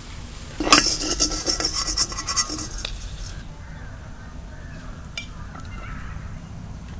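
A metal utensil scraping and clinking against a cooking pan for about two and a half seconds, starting just under a second in. A quieter steady hiss follows.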